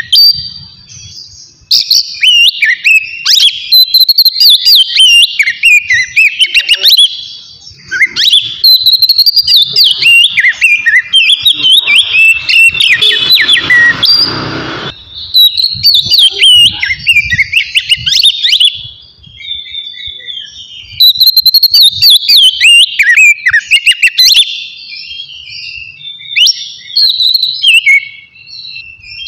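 Oriental magpie-robin (kacer) singing loudly in the open 'ngeplong' style: long runs of rapid, varied whistled notes that glide up and down, broken by short pauses.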